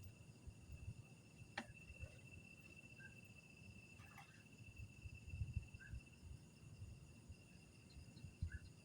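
Faint night insects: a cricket's steady high-pitched trill held throughout, with scattered short chirps. Two sharp clicks and some low thumps sound over it.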